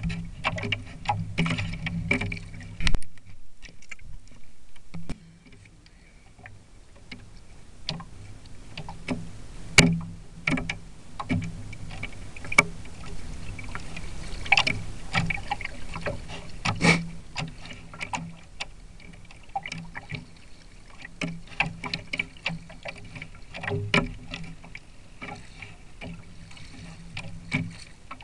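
Lake chop slapping and splashing against the plastic hulls of a Mini40 RC trimaran under sail, heard from a camera mounted on the boat, with irregular sharp knocks and taps over a low rumble. It goes quieter for a couple of seconds a few seconds in.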